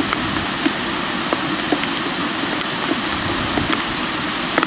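Steady rushing hiss with a few faint clicks scattered through it.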